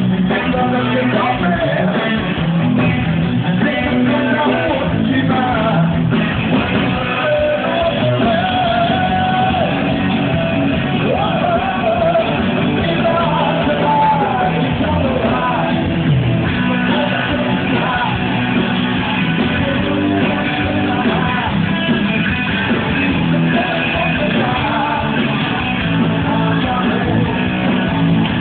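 Live band playing with a singer, recorded on a phone.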